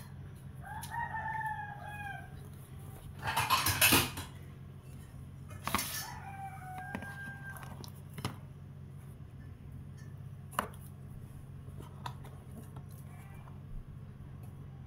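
Utensils scraping and knocking against a plastic tub and a plate as set sago ongol-ongol is cut and lifted out. There is one loud scrape about three to four seconds in, then scattered light clicks. A drawn-out animal call sounds twice in the background, near the start and about six seconds in.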